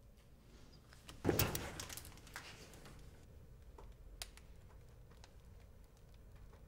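A dull thump about a second in, followed by faint scattered clicks and scuffs of someone moving about in a small indoor space.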